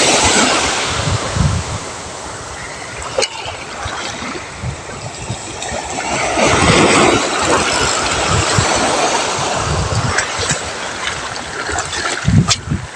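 Sea surf washing on the shore, loud at first, easing off, then swelling again a few seconds later, with wind buffeting the microphone in low gusts.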